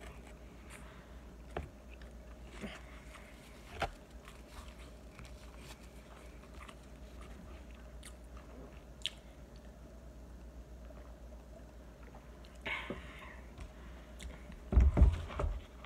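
Close-up chewing of food, with scattered small mouth clicks. Near the end comes a short cluster of loud, low thumps.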